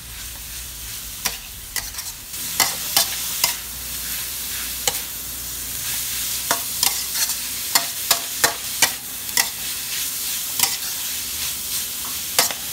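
Minced pork and strips of boiled bamboo shoot sizzling in a hot metal wok as a dry stir-fry with no water added. A metal spatula stirs them, scraping and clacking against the pan at irregular intervals.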